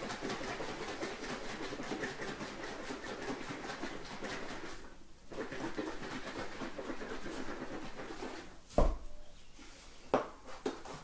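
A bottle of Stan's tubeless tyre sealant being shaken hard, the liquid sloshing in fast, even strokes that pause briefly about halfway, to mix the sealant before it is poured into the tyre. A sharp knock near the end, followed by a couple of lighter clicks.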